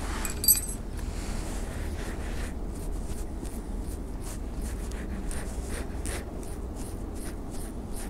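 Small fishing hook being sharpened with a small flat file: a single bright metallic tink about half a second in, then quick scratchy filing strokes, about three a second. A low wind rumble on the microphone runs underneath.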